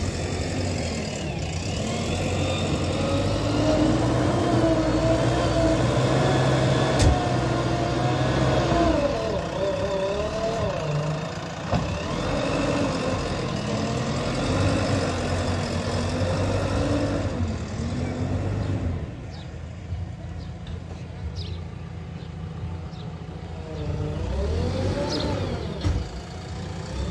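JCB 3DX backhoe loader's diesel engine working under hydraulic load, its pitch rising and falling as it digs and lifts the bucket, with a sharp metallic knock about seven seconds in. The engine eases off for a few seconds about two-thirds of the way through, then revs up again near the end.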